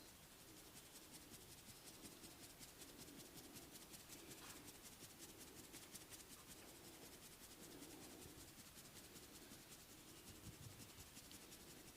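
Faint massage sounds: hands rubbing over skin and hair in repeated strokes, about one a second, with a fine scratchy rustle.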